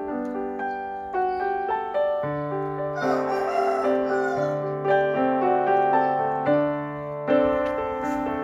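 Background piano music: a melody of single held notes over steady lower notes, with a brief hiss-like swell about three seconds in.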